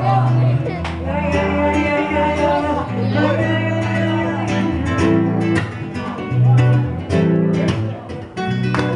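Song playing without words: strummed acoustic guitar over held bass notes, with percussion strokes throughout.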